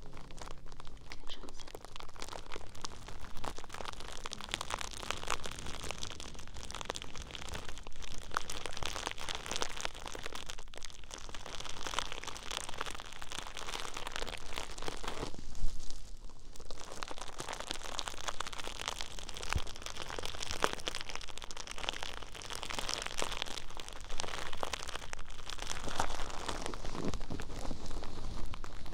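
Close-up ASMR trigger sounds: objects handled right at the microphone, giving a dense, continuous crinkling and crunching crackle with a short lull about sixteen seconds in.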